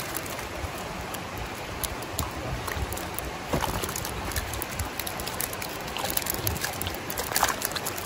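Creek water running steadily around a keep basket set in the stream, with the splashes of river fish thrashing in the basket, two louder splashes about three and a half seconds in and near the end.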